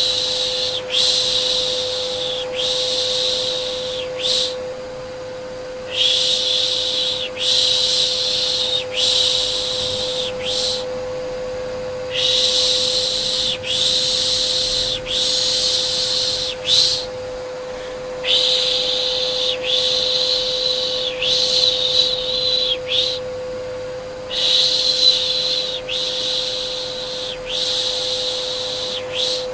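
Soft rhythmic shushing ('piş piş') to soothe a baby, about one 'shh' a second in runs of about five with short pauses between, over the steady hum of a vacuum cleaner.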